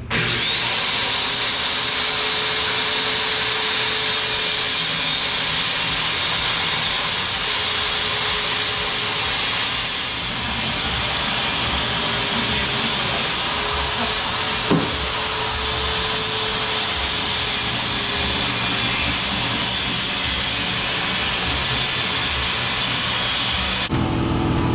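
Electric power tool motor starting abruptly with a quickly rising high whine, then running steadily and loudly for over twenty seconds while cutting UHMW plastic sheet along a taped-on template.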